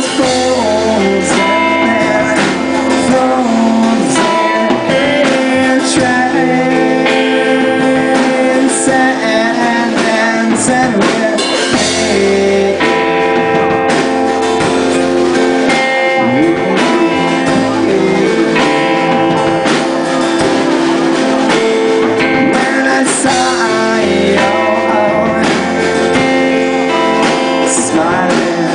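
A live rock band playing, with guitar leading over a drum kit.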